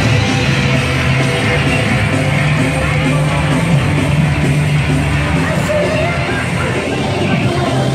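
Loud theme-park parade music, with held bass notes changing every second or so.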